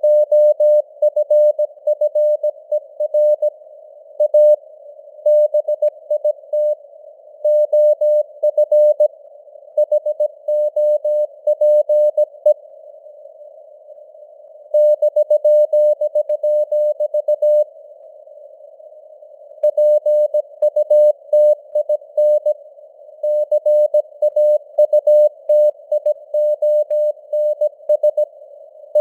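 Morse code sent at 17 words per minute as a keyed tone near 600 Hz, with dots and dashes over a narrow band of hiss like a radio receiver's noise. The keying stops twice in the middle for about two seconds each, leaving only the hiss.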